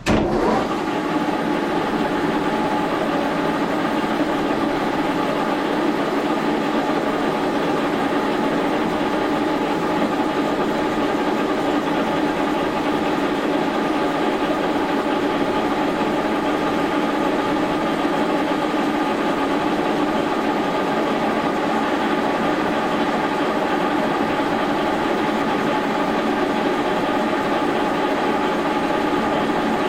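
Brown & Sharpe horizontal milling machine, fed through a rotary phase converter, switched on: it starts with a snap right at the start and then runs steadily, a machinery hum with several held tones.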